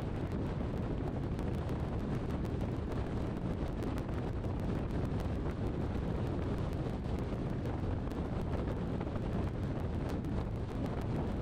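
Steady low rumble of road and wind noise from a car driving along, with wind buffeting the camera microphone.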